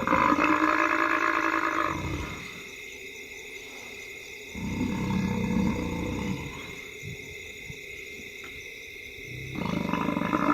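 Lions growling during a kill on a buffalo, in three low-pitched bouts of about two seconds each with quieter gaps between.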